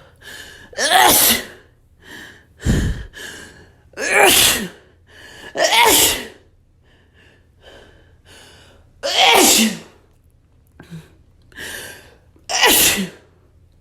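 A person sneezing repeatedly in a sneezing fit brought on by dust. There are five loud sneezes a few seconds apart, each one's voice falling in pitch, with short quieter catching breaths between them.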